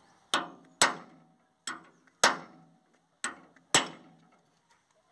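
Steel rod striking a tractor trolley's wheel hub, six sharp metallic clanks that ring briefly, falling in three pairs about a second and a half apart, as the hub is knocked at during a wheel bearing change.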